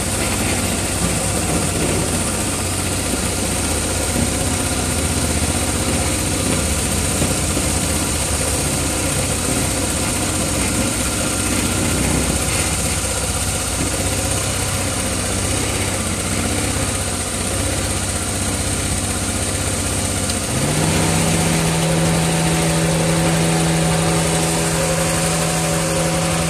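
Miniature class 31 locomotive's engine running steadily. About twenty seconds in, it revs up quickly and holds a higher, steady pitch.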